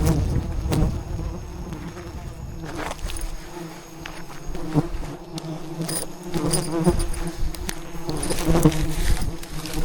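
A swarm of wild bees buzzing steadily, with scattered knocks and clicks through it.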